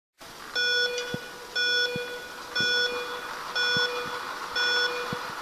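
Track cycling start countdown clock beeping once a second, five short electronic beeps counting down to the start.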